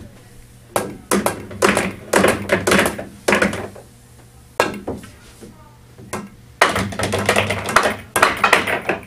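Pool balls clacking on a pool table: the cue striking the cue ball and balls knocking into one another, in several runs of sharp clicks.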